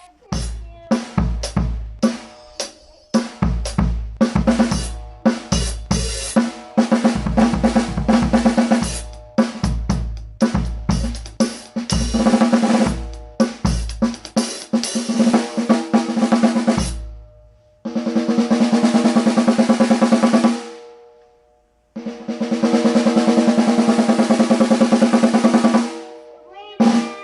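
Custom 15 by 5¼ inch solid maple stave snare drum played in a sound check: busy groove strokes with deep low thumps under them for the first two-thirds, then two sustained snare rolls, one of about three seconds and a longer one of about four, with a last hit near the end.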